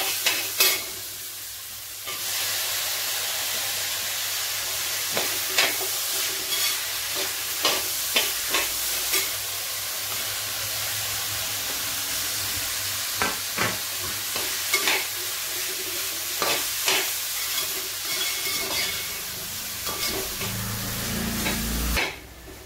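Diced fruit sizzling in hot ghee in a metal pot, being sautéed so the ghee coats it, while a perforated steel ladle stirs it, clinking and scraping against the pot about once a second. Near the end a low rumble comes in and the sizzle cuts off.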